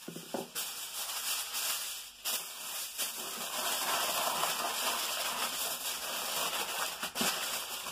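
Aluminium foil crinkling and rustling as a sheet is pulled off the roll and folded and pressed around a foil-wrapped rack of pork ribs, with brief pauses about two seconds in and near the end.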